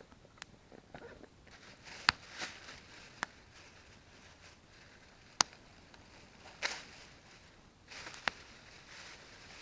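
Wood campfire crackling: a few sharp pops spaced a second or more apart, with softer crackle between.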